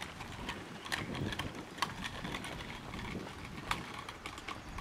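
Jogging footsteps on a concrete sidewalk, heard through a hand-held camera jolting with each stride: dull thumps about every half second with scattered sharp clicks and knocks of handling noise.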